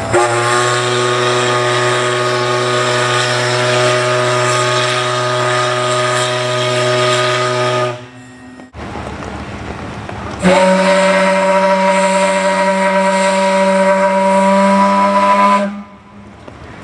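Two long steam whistle blasts of different pitch: a lower one holds steady for about eight seconds, then after a couple of seconds of hissing steam a higher-pitched one sounds for about five seconds and cuts off sharply.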